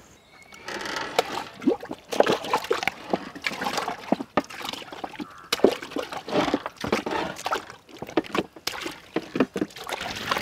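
Water sloshing and splashing in a large steel pot as whole raw chickens are washed by hand, with water trickling off the birds as they are lifted. It starts about half a second in and goes on in irregular splashes.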